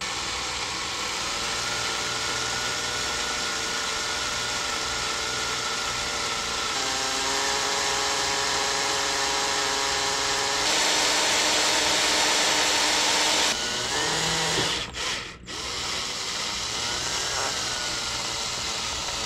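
Cordless drill boring a roll-pin hole through the steel counter shaft nut and into the counter shaft of an International 1066 speed transmission, its motor whining steadily as it cuts. The pitch shifts as the load changes, the drill is loudest a little past the middle, and it briefly stops twice about three-quarters of the way through. The nut is softer than expected and drills easily.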